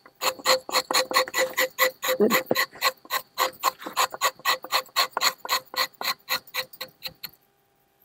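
A rubber-tapping knife shaving bark along the tapping cut of a rubber tree in quick, short scraping strokes, about five a second. The strokes stop about seven seconds in, and one more comes near the end.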